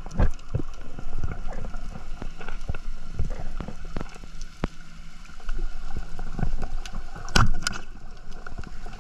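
Underwater sound from a camera mounted on a wooden band-powered speargun: scattered clicks and knocks, then a loud sharp crack about seven and a half seconds in as the speargun fires, with a second knock right after.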